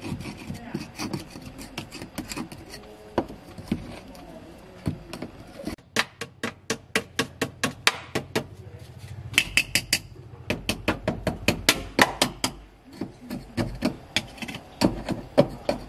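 Screwdriver scraping at caked dirt around a car's fuel pump access opening, then a quick run of sharp taps, about two or three a second, from about six seconds in.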